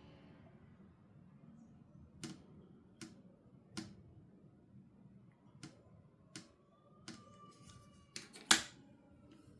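A series of sharp hard-plastic clicks and taps from doll toys and packaging being handled, about eight separate clicks spaced irregularly, with the loudest snap near the end.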